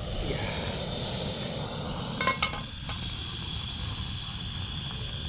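Two quick metallic clinks with a short ring about two seconds in, as a frying pan is set down on a portable gas stove's burner. A steady low rumble runs underneath.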